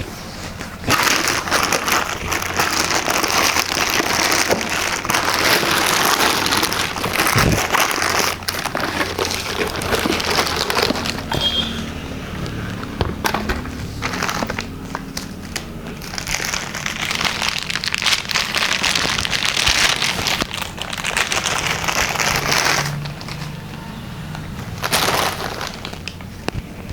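Plastic packaging crinkling and rustling as it is handled and pulled away, with small crackles coming and going in uneven spells.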